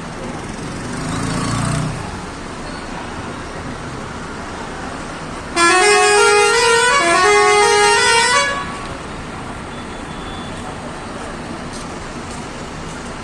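A bus's multi-note musical horn sounds loudly for about three seconds past the middle, playing a short stepped tune in two rising phrases. Steady engine and road noise runs underneath, swelling briefly about a second in.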